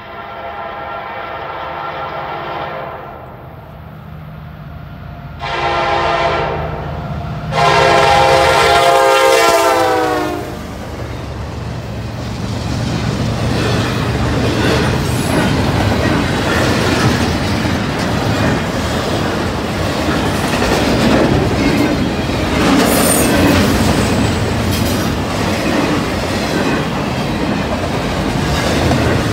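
Norfolk Southern freight locomotive's multi-chime horn sounding a long blast, a shorter one and another long one for a grade crossing, the pitch dropping at the end of the last blast as the locomotive passes. Then the double-stack intermodal train rolls by, with steady wheel rumble and the clickety-clack of wheels over the rail joints.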